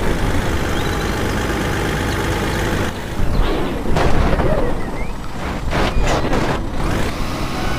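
Loud, steady truck engine noise, with a few sharp bangs about three to four seconds in and again near six seconds.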